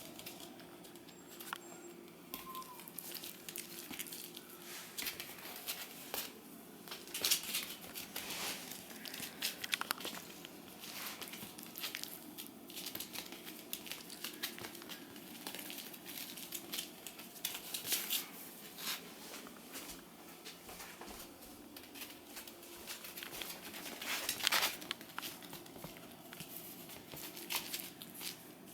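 Shiba Inu puppies moving about on crinkly bedding: irregular rustling, crinkling and scratching, with louder flurries about seven seconds in and again near twenty-four seconds.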